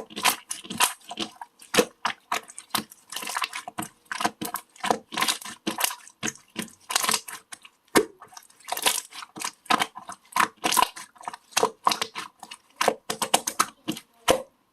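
Jelly slime being squished and kneaded by hand, making a rapid, irregular run of wet clicks, pops and squelches.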